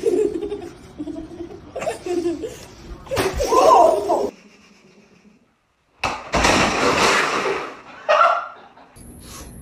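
People laughing in short bursts. About six seconds in comes a loud two-second burst of noise, then a sudden change to a steady high tone.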